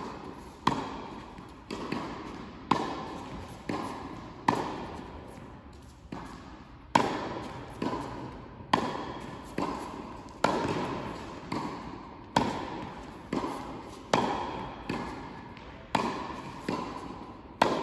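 Tennis rally: a tennis ball being struck by rackets and bouncing on a hard court, a sharp pop about once a second with one short pause midway, each echoing in a large indoor hall.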